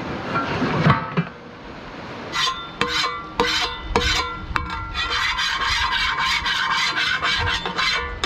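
Metal spatula scraping the wet surface of a skottle pan, cleaning off cooking residue loosened by heated water. A few separate rasping strokes start about two seconds in and speed up to a fast run of short scrapes.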